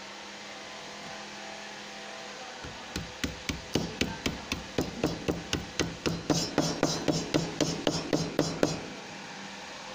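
Claw hammer tapping a small piece of thin sheet metal against the edge of a wooden workbench, bending over a fold to form a lock seam for a gutter. About two dozen quick, light, even strikes, roughly four a second, start about three seconds in and stop shortly before the end.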